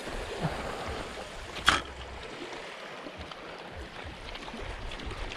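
Gentle wash of small waves on a pebbly, rocky shore, with one sharp click a little under two seconds in.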